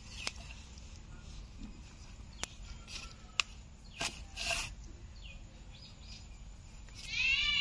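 A country (desi) rooster, held upside down by its legs, squawks loudly near the end in one harsh pitched call. Before it come a few light knocks and short rustles.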